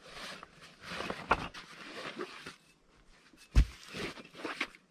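Rustling of a fabric backpack being opened and rummaged, then a heavy thud about three and a half seconds in as a brick comes out and is set down, followed by more rustling and light knocks.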